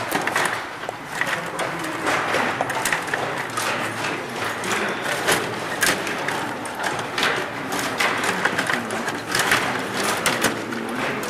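Stiga Play Off table hockey game in play: a fast, irregular run of sharp clicks and clacks from the rods, player figures and puck knocking against each other and the rink boards, over background voices.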